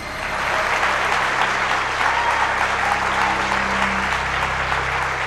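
Audience applauding, the clapping swelling up within the first half second and then holding steady.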